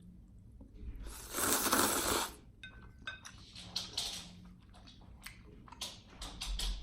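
Eating at the table: utensils clicking and clinking against a bowl, with crunchy chewing. A loud rushing noise lasting about a second starts a little over a second in.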